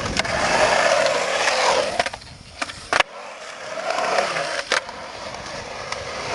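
Skateboard wheels rolling fast across the skatepark, broken by a few sharp clacks of the board, the loudest about three seconds in, then rolling again more quietly with one more clack near the end.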